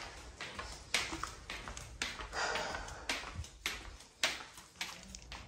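Footsteps on a hard floor, a sharp tap with each step, about one or two a second, with a brief rustle about halfway.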